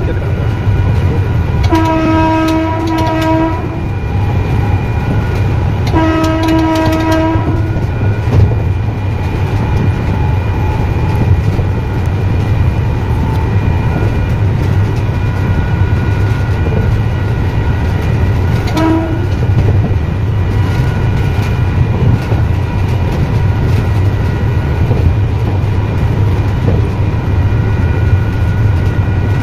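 Train running, heard from the driver's cab: a steady low rumble with the horn sounded three times, a longer blast about two seconds in, another about six seconds in, and a short toot about two-thirds of the way through.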